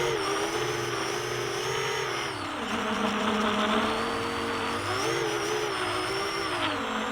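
A 7-inch FPV quadcopter's brushless motors and propellers whining as the throttle changes. The pitch sinks around two and a half seconds in and climbs again around five seconds in, over a steady rushing noise.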